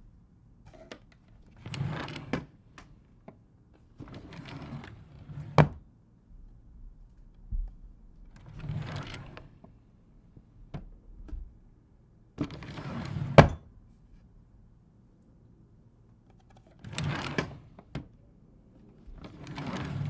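A drawer sliding open and shut six times, each slide a rough scraping rush about a second long. Three of the slides end in a sharp knock as the drawer hits its stop.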